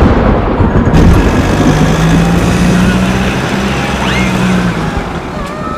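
A loud rumbling noise with a steady vehicle engine hum that comes in about a second and a half in and fades near five seconds.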